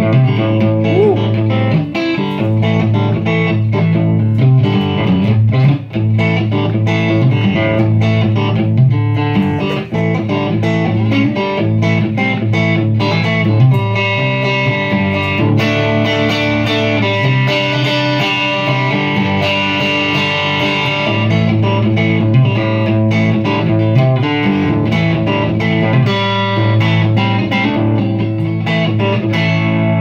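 Stratocaster-style electric guitar played through a Pedalbot Royal Grit pedal and an amplifier: continuous chords and single-note riffs, with no pauses.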